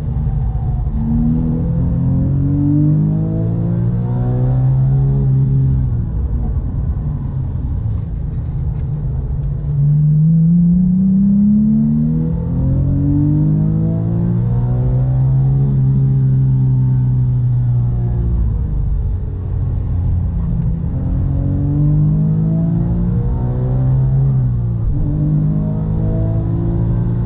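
Porsche 997 GT3's naturally aspirated 3.6-litre flat-six at full load on track, heard from inside the cabin. The engine note climbs steeply as it accelerates and falls back several times as the car slows for corners.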